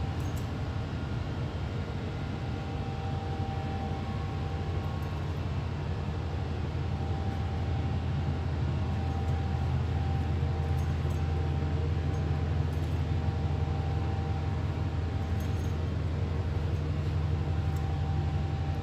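Steady low hum of commercial kitchen ventilation and refrigeration machinery, with a faint steady whine above it, growing slightly louder about halfway through.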